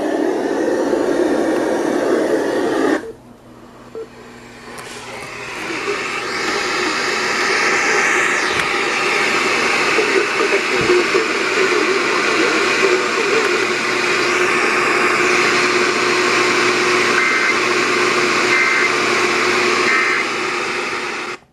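Radio static hiss from an off-air receiver. It cuts out abruptly about three seconds in, then builds back over a couple of seconds into a steady hiss with a faint underlying tone.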